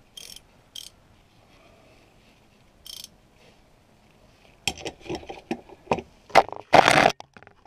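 A few isolated light clicks, then in the last three seconds a cluster of sharp metallic clicks and short rattles as a ratchet spanner is handled and fitted onto a nut on a flat steel mounting bar.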